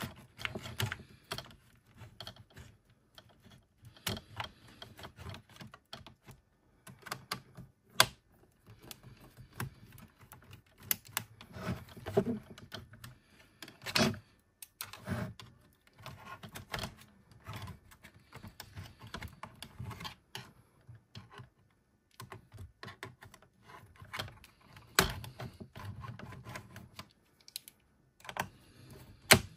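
Irregular clicking and tapping on the keys of a Lenovo ThinkPad T560 laptop keyboard, in short clusters with pauses between them and a few sharper knocks.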